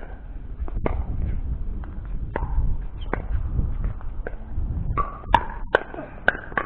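Pickleball paddles striking a hard plastic ball in a rally: sharp pocks about a second apart, coming faster over the last two seconds, over a steady low rumble.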